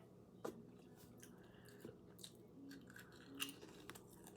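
Faint chewing of potato chips, with a few soft crunches now and then.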